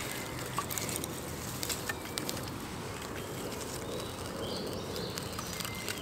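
Small kindling fire of wood shavings catching, with scattered light crackles and the rustle of shavings and sticks being added. Faint bird chirps are heard in the background.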